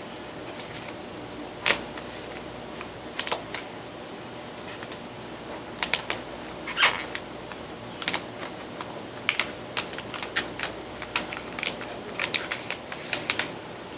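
A large adhesive vinyl print and its paper backing being handled, the liner picked loose at a corner and the sheet pulled: irregular sharp clicks and crackles, some in quick clusters, over a steady room hum.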